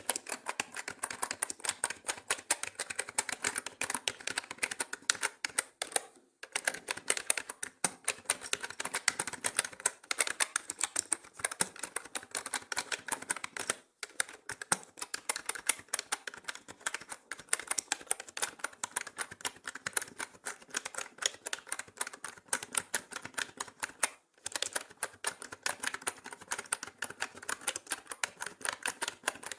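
Mechanical keyboard typing: a fast, continuous run of key clicks, pausing briefly three times.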